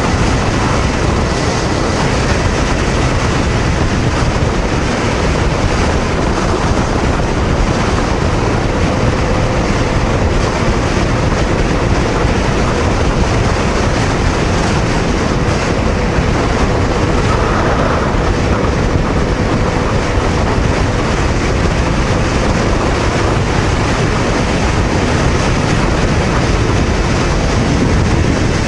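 Honda VTR250 V-twin motorcycle cruising at about 100 to 110 km/h on an expressway: a loud, steady rush of wind and road noise with the engine running underneath.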